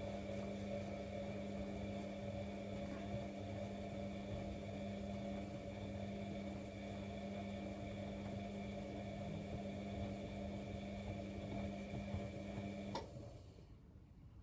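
Bosch WFCX 2460 front-loading washing machine running mid-wash with a steady motor hum. The hum cuts off with a click about 13 seconds in, as the machine pauses between drum turns.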